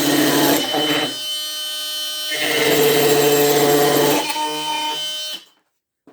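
Ryobi HP brushless oscillating multi-tool (PBLMT51) running at speed six and cutting through wooden trim, its level dipping and rising between strokes. It cuts off about five seconds in.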